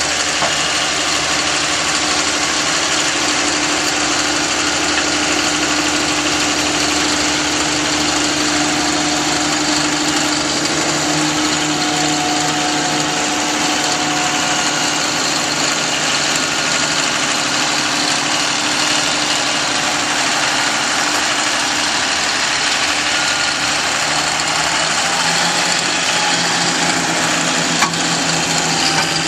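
Snowmobile trail groomer tractor's engine running steadily under load while it spreads and levels a load of sand, its note shifting slightly near the end.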